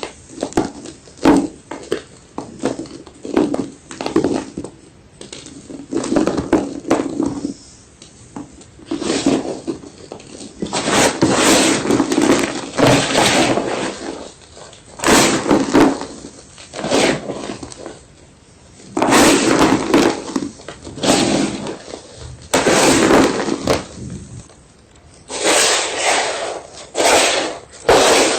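White gym chalk being crunched: a series of dry crunches, each lasting up to a second, coming irregularly about every one to two seconds.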